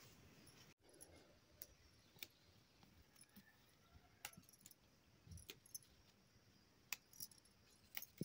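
Faint, scattered clinks and ticks as hands pick through fresh amaranth greens: metal bangles knocking together and leaf stems snapping, every second or so.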